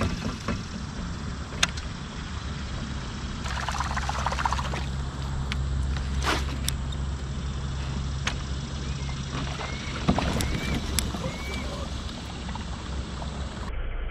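A motor hums steadily for about seven seconds, then fades, with scattered sharp clicks and knocks and a few short chirps near the end.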